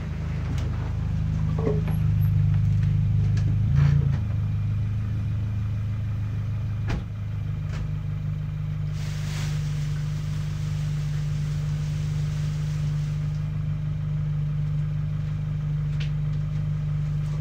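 Washing-machine electric motor running with a steady low hum as it drives a curtain. There is a sharp click about seven seconds in, after which the hum settles to a steadier tone, and a soft hiss for a few seconds in the middle.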